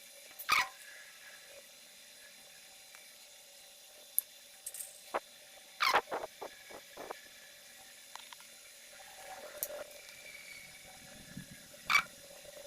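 Soldering a resistor onto a switch-mode power supply board: scattered small clicks and taps of tools and the part on the board, with a faint sizzle from the soldering iron on the solder joint.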